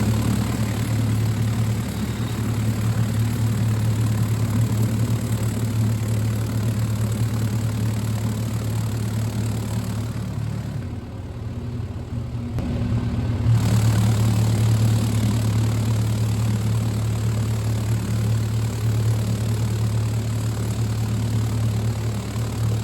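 Deburring machine running with forged steel brackets inside, knocking off the forge scale: a steady hum with a rattling, hissy noise over it. It dips for a couple of seconds about eleven seconds in.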